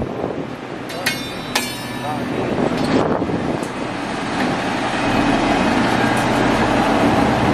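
Diesel multiple unit passenger train rolling slowly past at close range: a few sharp metallic clanks of wheels over the rail joints in the first two seconds, then a steady diesel engine hum that grows louder as the coaches go by.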